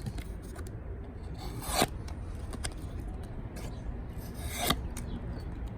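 Kephart fixed-blade knife slicing through thicker cardboard in two strokes, about three seconds apart. Each stroke is a short scraping swish. The edge is sharp enough to leave clean razor cuts.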